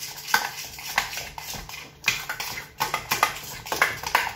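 A spoon stirring thick pap (akamu) in a stainless steel saucepan, knocking and scraping against the pan in quick, uneven strokes, about two to three a second.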